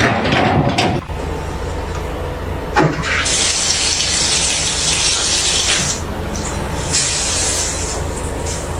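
A steady low machine rumble with a hissing spray over it, in two bursts: one about three seconds long and a shorter one of about a second.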